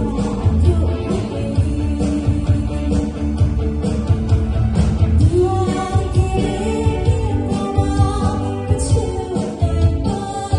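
A band playing a pop-rock song with a vocalist singing, electric guitar, bass and drums keeping a steady beat.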